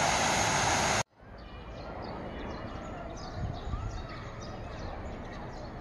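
Waterfall rushing as a loud, even hiss, broken off suddenly about a second in. Then a quieter open-air background with small birds chirping in short high notes.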